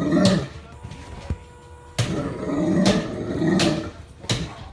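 Great Dane giving excited growling vocalizations in several short bursts, with a few sharp thumps as it rears up and bounces.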